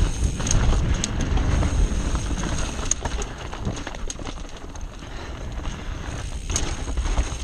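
Mountain bike ride down a dirt trail, heard from a camera on the bike or rider: a steady rumble of wind on the microphone and tyres on dirt, with the bike rattling and scattered sharp clicks and knocks as it rolls over roots and rocks. It is a little quieter around the middle.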